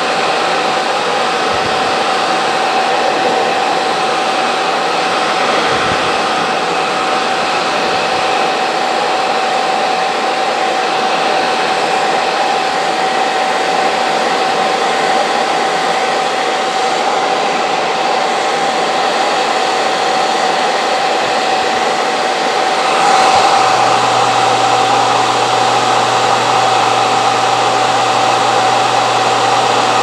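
Hand-held hair dryer running steadily: a rushing blow with a steady high whine. About 23 seconds in it grows a little louder and a low hum joins in.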